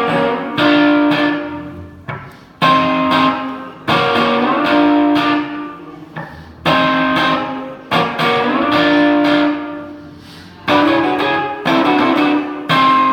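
Electric guitar played through an amplifier: a repeating riff of sharply picked notes and chords that ring out and die away, with a new phrase every one to three seconds.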